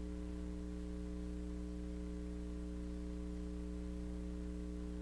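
Steady electrical mains hum on dead air, a low buzz holding several even tones without change.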